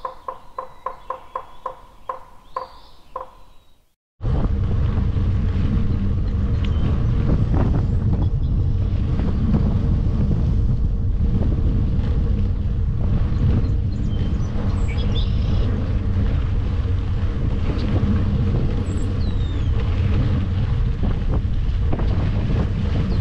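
Mountain bike ridden along a dirt trail, heard through a mounted camera's microphone: steady wind noise and tyre rumble with scattered rattles and clicks. It starts suddenly about four seconds in, after a short run of evenly spaced pitched notes, about four a second.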